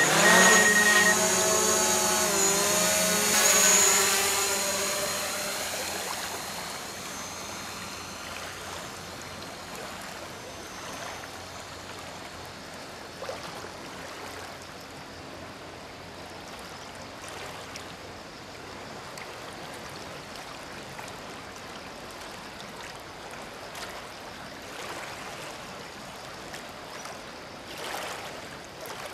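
DJI Mavic quadcopter's propellers spinning up and the drone lifting off, a whine of several shifting tones that is loudest in the first few seconds and fades as it climbs away. After that a faint steady rush of river water.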